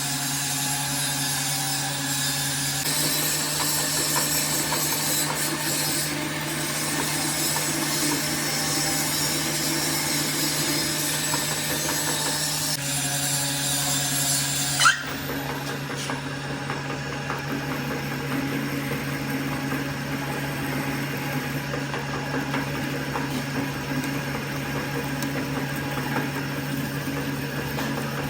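Workshop power machinery running steadily, with a constant low hum under a grinding, rubbing noise. About halfway through there is one sharp click, after which the sound changes slightly and runs on.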